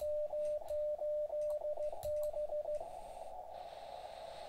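Elecraft KX3 transceiver's CW sidetone: a steady beep keyed on and off in Morse code as the rig transmits on 80 metres. A little under three seconds in the keying stops, and the receiver's narrow-filtered hiss takes over.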